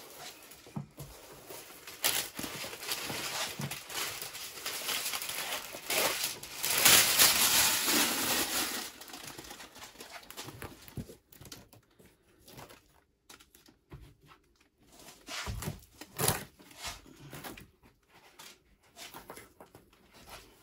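Protective backing film being peeled off a self-adhesive sound-deadening sheet, crackling and rustling, loudest in the middle, then quieter scattered rustles and small knocks as the sheet is handled.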